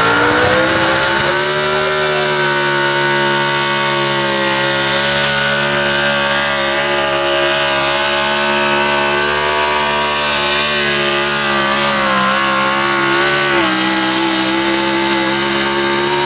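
A square-body 4x4 pickup's engine held at high revs under full load as the truck drags a weight-transfer pulling sled, its pitch steady apart from a brief sag a little over twelve seconds in.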